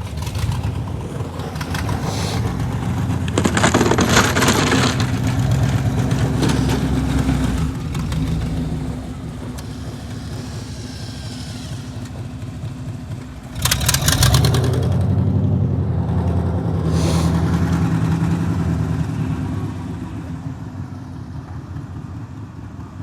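A vehicle engine running, louder in two revving spells. The first builds over the opening seconds and the second starts sharply about fourteen seconds in. It settles back to a lower, steady run in between and near the end.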